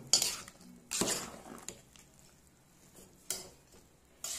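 A slotted metal spoon stirring milk-soaked fried bread in a metal pot, scraping and knocking against the pot's sides. There are a few sharp clinks: the loudest right at the start, another about a second in, and two more in the last second and a half.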